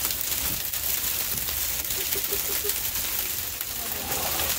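Freezing rain hitting all around, a dense crackling patter of fine ice ticks. A quick run of short low notes sounds about two seconds in.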